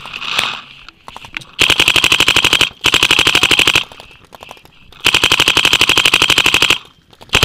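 Dye DM12 electropneumatic paintball marker firing rapid strings of shots, more than ten a second: three strings, the last and longest nearly two seconds.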